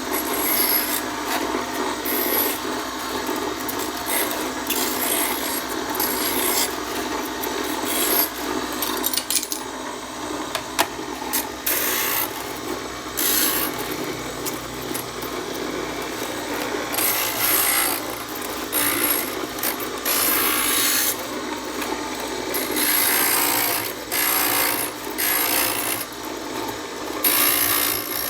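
A homemade stained-glass grinder's electric motor spins the grinder head while a piece of glass is pressed against it: a steady running sound, with uneven rasping surges as the glass edge is ground.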